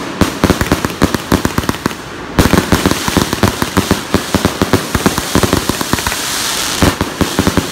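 100-shot consumer firework cake firing rapidly, one shot after another, several launches a second, with a brief lull about two seconds in.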